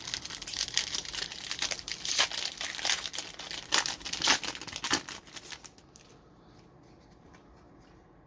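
Foil trading-card pack wrapper crinkling and crackling, stopping about six seconds in.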